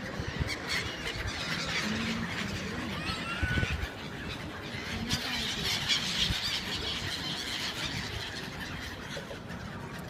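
A flock of gulls calling over water: many short, overlapping squawks and cries, busiest about five to seven seconds in.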